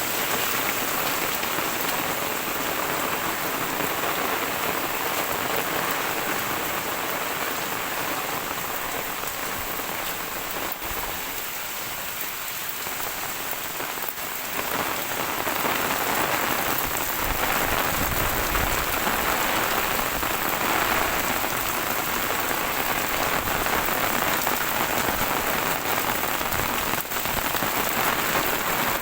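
Heavy rain falling and splattering on surfaces, a dense steady hiss that eases a little about halfway through and then picks up again.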